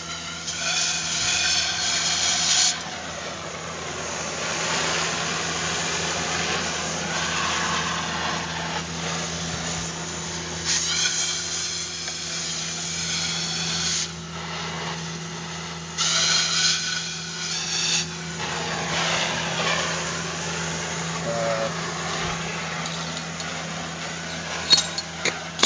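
Oxy-acetylene cutting torch hissing steadily as it cuts the steel of a go-kart steering assembly, rising to a louder rush three times for a couple of seconds each. A steady low hum runs underneath.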